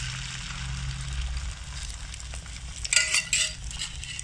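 Omelette batter sizzling in an oiled nonstick frying pan, a steady hiss, with a brief clatter about three seconds in.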